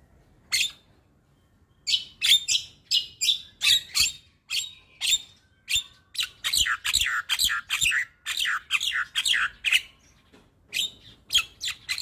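Javan myna (jalak kebo) singing. A single note comes first, then a rapid string of short notes about three a second, which turns into a denser run of quick downward-sweeping notes. After a brief pause near the end, it starts again.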